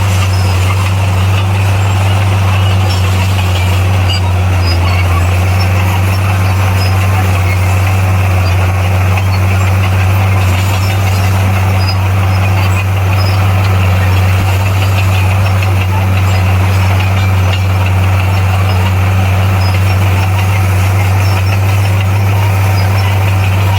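Bulldozer's diesel engine running steadily under load, a constant low drone with no breaks.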